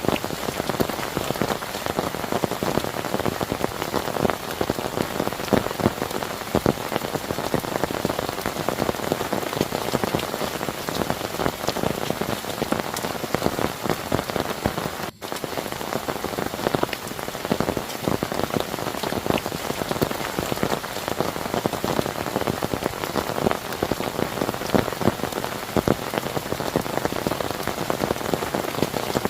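Heavy rain falling steadily, with many individual drops striking close by. A split-second break comes just after the middle.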